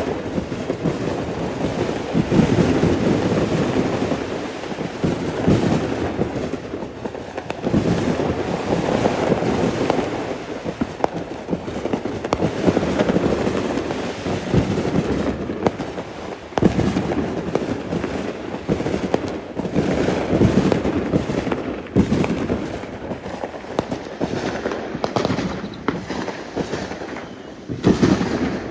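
Fireworks going off in a continuous barrage: many bangs and crackles in quick succession over a rolling rumble that swells and eases every few seconds.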